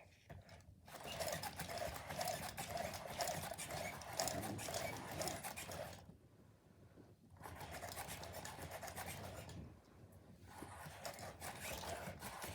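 Aibo ERS-1000 robot dog moving, its joint motors whirring under rapid fine ticking, in three stretches of a few seconds each.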